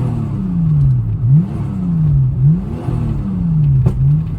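Nissan Skyline R34 GT-T's turbocharged 2.5-litre straight-six being revved in quick blips, the engine note jumping up and falling back slowly about four times. There is one sharp pop near the end.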